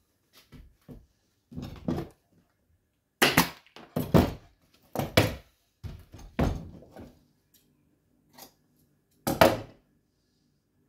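A wooden chair frame and its upholstered velvet seat being handled on a workbench: a series of thuds and fabric rustles. They are loudest in the middle and once more near the end.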